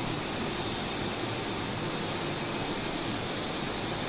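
Steady room noise: an even hiss with a faint steady high-pitched whine and a low hum, unchanging throughout.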